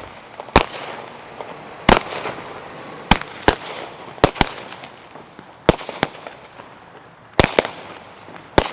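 Fireworks going off: a run of sharp bangs, roughly one a second and some in quick pairs.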